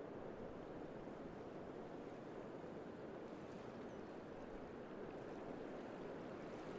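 Faint steady rushing noise with no pitch or rhythm.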